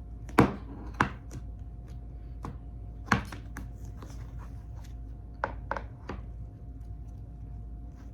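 Slime being worked by hand, giving irregular sharp pops and clicks, the loudest in the first few seconds and two close together past the middle.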